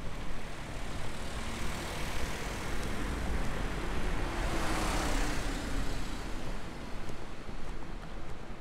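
A car passing by on the road: tyre and engine noise swells, peaks about five seconds in with a slightly falling pitch, and fades away.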